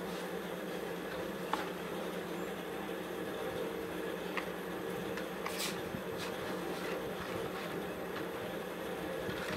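Steady low hum of room tone, with a few faint light taps and rustles as paper cones are handled and pressed onto a cardboard base.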